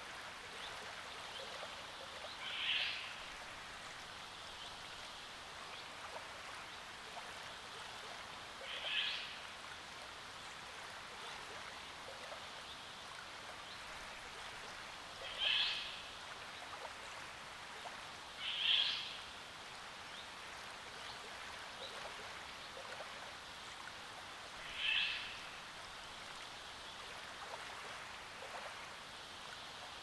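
Soft, steady lapping and trickling of small waves at a lakeshore, with a bird giving a short call five times, every three to six seconds.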